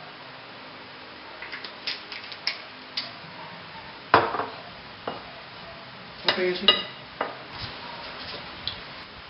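Scattered clinks and knocks of a metal spoon and ceramic plate while mixing seasoned flour for breading: light clicks in the first few seconds, a loud knock about four seconds in, and a cluster of ringing clinks past the six-second mark.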